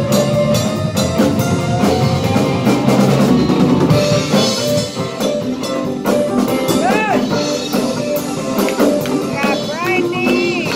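Live band playing with a drum kit keeping a steady beat under electric and acoustic guitars. A few rising-and-falling notes stand out about seven and ten seconds in.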